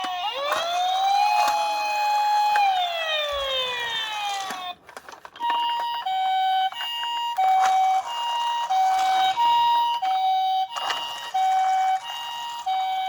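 Electronic siren sounds from toy emergency vehicles: several overlapping wailing sirens rising and falling for the first four seconds, then, after a short break, an ambulance-style two-tone siren alternating steadily between a high and a low note.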